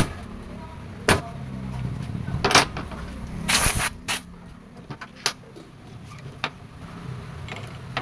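Metal parts and tools of a motorcycle rear shock clicking and knocking on a workbench as it is being reassembled. There are several sharp clicks spaced a second or so apart, a short hiss about three and a half seconds in, and a steady low hum underneath.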